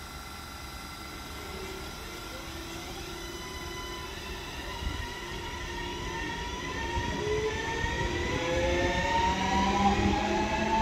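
BM 72 electric multiple unit pulling away from a station stop. Its traction motors whine in several tones that climb steadily in pitch as it gathers speed, over a low rumble, growing louder toward the end.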